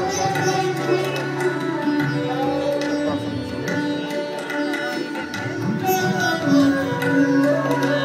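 Indian classical-style music with plucked strings and hand drums, playing steadily as accompaniment to a dance.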